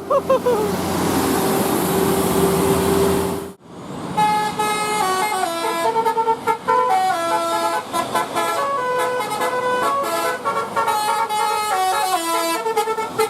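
A bus's multi-tone 'telolet' horn playing a quick tune of stepped notes. Before it, about three and a half seconds of steady droning with a held tone, which cuts off suddenly.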